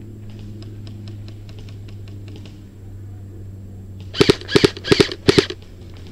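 Airsoft gun firing: about four seconds in, a quick burst of sharp snaps in roughly four close pairs over about a second and a half, preceded by a fainter run of rapid ticks.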